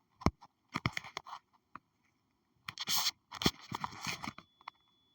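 Several sharp clicks and short scraping, rustling noises. A faint steady high tone comes in near the end.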